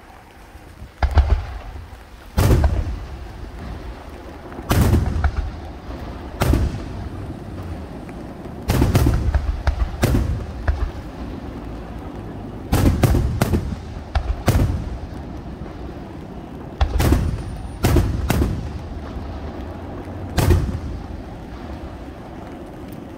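Aerial fireworks shells bursting overhead: a series of sharp booms at irregular intervals of one to two seconds, some in quick pairs, each followed by a rolling echo.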